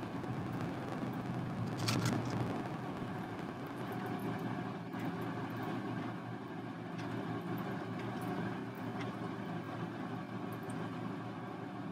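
Steady mechanical background hum, with a short metallic clatter about two seconds in and a few faint ticks later as a metal ball chain is handled and laid onto the wet canvas.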